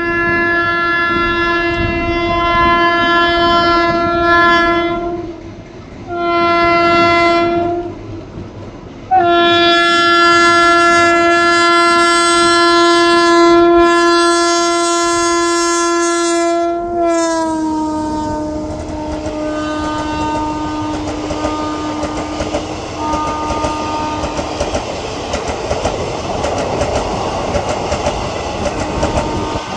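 WAP7 electric locomotive's air horn sounding in three blasts, the last a long one whose pitch drops as the locomotive passes. It goes on at the lower pitch with short breaks, then gives way to the rumble and clickety-clack of the coaches going by.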